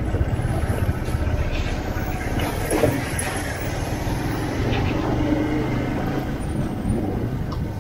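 Motorcycle engine running steadily while riding along a street, with a brief louder sound about three seconds in.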